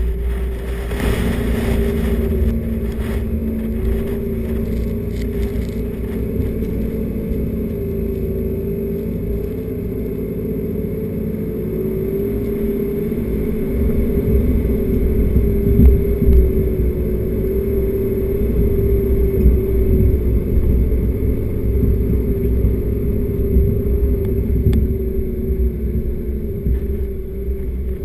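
Four-wheel-drive vehicle driving on a soft sand track: the engine runs under load with a steady drone over a low rumble, growing somewhat louder from about halfway. A brief rustle about a second in.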